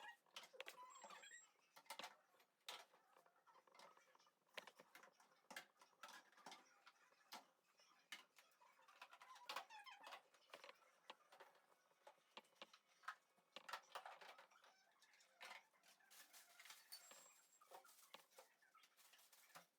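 Near silence broken by faint, scattered clicks and light knocks of containers being set on and moved around fridge shelves.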